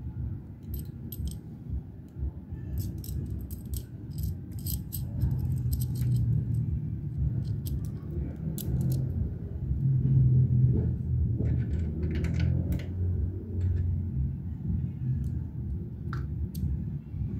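Small metal engine parts and tools clinking and rattling in short irregular clusters, over a low steady rumble.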